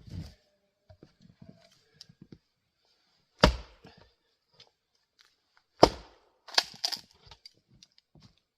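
Splitting axe chopping into grand fir rounds: two heavy, sharp chops about two and a half seconds apart, the second followed by a couple of lighter knocks.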